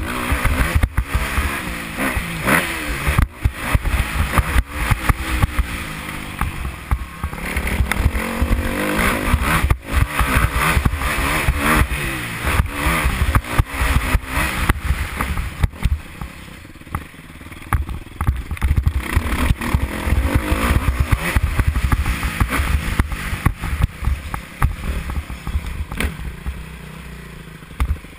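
Motocross bike engine revving up and falling back again and again as it is ridden hard over a dirt track, heard from a helmet camera, with a heavy low rumble and sharp knocks here and there. The engine eases off for a few seconds just past the halfway point.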